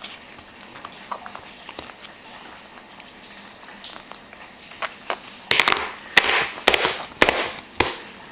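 Baby making sputtering engine noises with his lips while eating: faint scattered ticks, then a run of sharp crackling spurts starting about five seconds in and lasting some three seconds.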